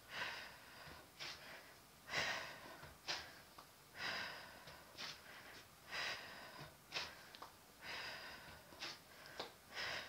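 A woman's breathing during a warm-up, with soft breaths about once a second.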